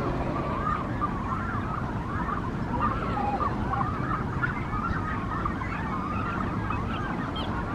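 Brandt's cormorant nesting colony calling: many wavering, overlapping calls over a steady low background noise.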